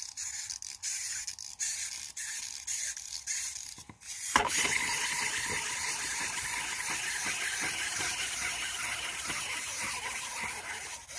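A Barry the Bee McDonald's toy being worked: short clicking, ratcheting bursts for about four seconds, then its flapping-wing mechanism runs in a steady whirring buzz that stops suddenly.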